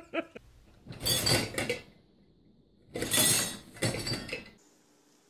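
Dishes and the wire rack of an open dishwasher clinking and rattling in short bursts as a dog clambers about in the lower rack.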